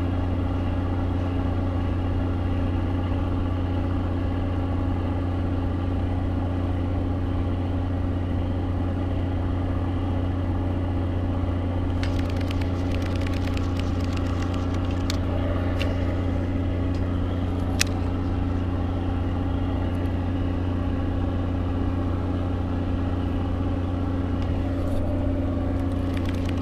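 Steady low mechanical drone of a running motor, even in level throughout. A little before halfway comes a brief cluster of small clicks, and a single sharp click follows a few seconds later.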